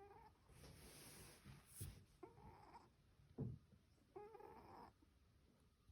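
Domestic cat snoring in its sleep: a faint pitched snore on each breath, coming about every two seconds with soft breathy noise between. Two dull low thumps a little under two and about three and a half seconds in, the second the loudest sound.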